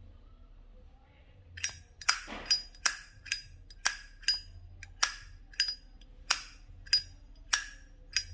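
Zippo lighter's hinged metal lid being snapped open and shut over and over, about a dozen sharp ringing clinks, roughly two a second, starting about a second and a half in.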